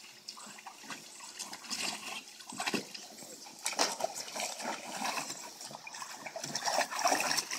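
Water splashing and sloshing in a plastic kiddie pool as two dogs step and shift about in it, in irregular bursts that get busier after the first second or so.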